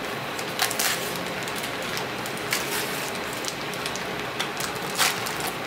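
Plastic vacuum-pack bags crinkling and rustling as they are handled and cut open, with a few sharper crackles.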